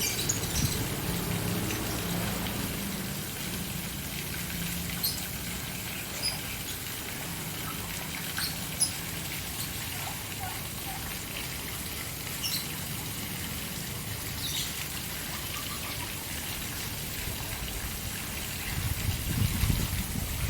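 Fountain water splashing and trickling steadily, with scattered short bird chirps from caged birds.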